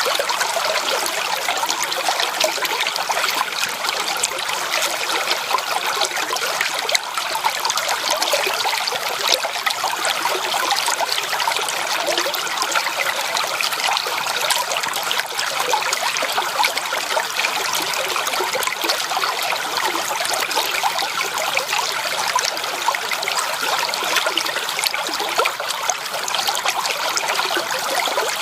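Shallow creek water trickling and babbling over stones: a steady, even rush flecked with small splashes and gurgles.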